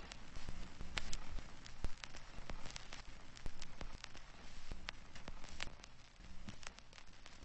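Crackling: scattered sharp clicks at an uneven pace over a steady hiss, with a faint low hum underneath.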